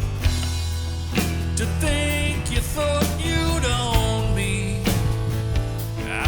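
Background rock music with a steady drum beat, guitar and a singing voice.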